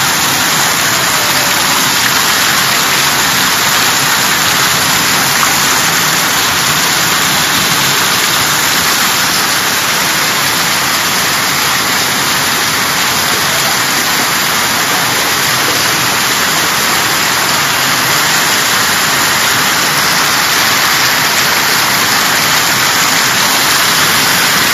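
Heavy wind-driven rain pouring down in a storm, a loud steady hiss that does not let up.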